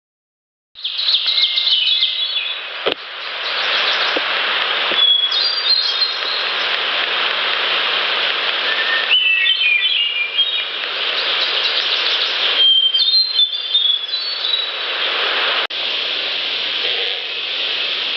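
Heavily amplified trail-recorder audio: a steady loud hiss with small songbirds chirping, and a few faint light taps in the first few seconds.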